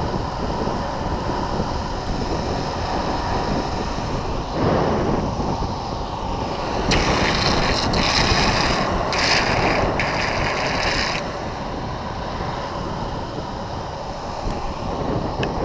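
Wind rushing over the microphone together with longboard wheels rolling on asphalt at downhill speed, a steady rumbling rush. In the middle a harsher high hiss comes and goes in several blocks for about four seconds.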